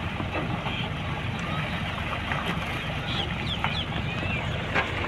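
Steady low hum of a water tanker truck's engine running, with a few short bird chirps about three and a half seconds in.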